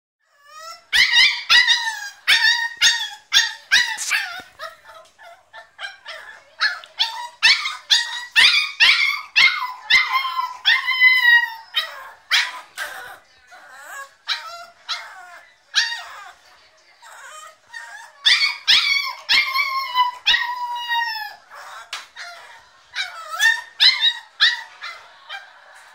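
American Staffordshire terrier puppy screaming and yelping in quick high-pitched runs, several cries a second with short pauses between runs, some cries drawn out and falling in pitch. It is a crated puppy crying to be let out.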